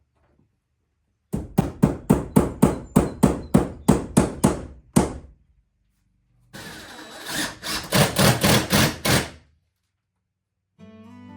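Hammer driving nails into cedar 2x4 framing: a run of about a dozen sharp blows, about three a second, then after a pause a second, quicker run of blows over a rougher noise.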